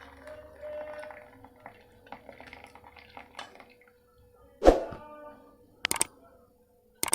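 Hot kadha being strained from a pan into a cup: soft pouring and dripping with light clatter. About two-thirds of the way through, a utensil strikes loudly with a ringing clink, followed by two shorter clinks.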